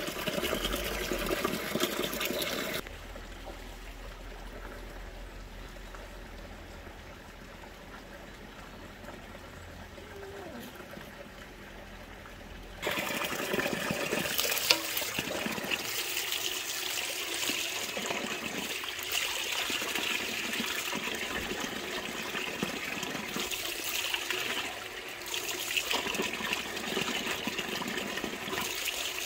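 Water running and splashing, stopping suddenly about three seconds in for a quieter stretch with a low hum, then starting again abruptly about thirteen seconds in, with one sharp knock soon after.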